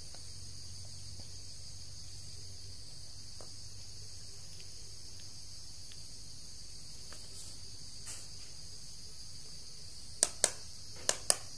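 Steady high-pitched insect chorus, like crickets, over a faint low hum, with four sharp clicks near the end.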